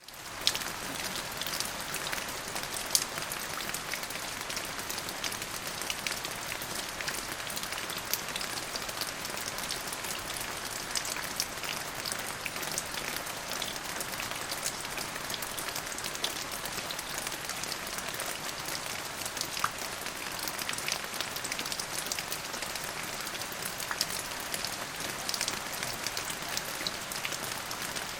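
Steady rain falling on a surface, an even hiss with many individual drop taps scattered through it and a few louder ones.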